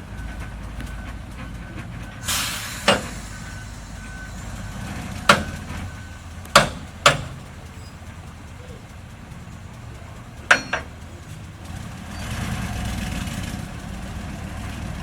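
Heavy earthmoving machine's diesel engine running, with its reversing alarm beeping about twice a second for the first six seconds. Five sharp bangs or clanks punctuate it, and there are bursts of hiss.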